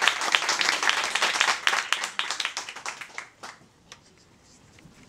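Small audience applauding by hand, the clapping thinning to a few last claps and dying away about three and a half seconds in.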